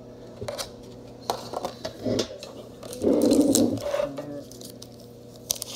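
Metal Pokémon card tin handled on a countertop: a few light clicks and knocks, then a louder rough scrape lasting under a second about three seconds in.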